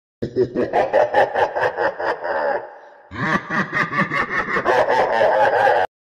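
Laughter sound effect played twice in a row: two bursts of rapid, pulsing laughter, each about two and a half seconds long, with a short silent gap between them.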